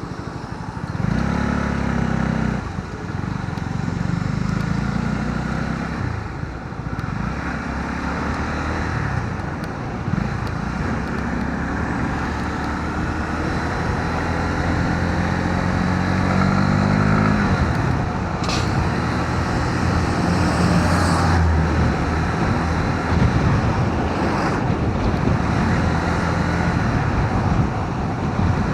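Honda CB125R's single-cylinder engine heard while riding, its pitch climbing and dropping back several times as it accelerates and changes gear, with wind and road noise throughout.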